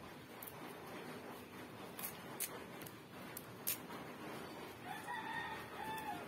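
Light clicks and rustles of moringa leaves being picked off their stems by hand. About five seconds in, a fowl crows once in the background, one call lasting over a second that rises, holds and drops at the end.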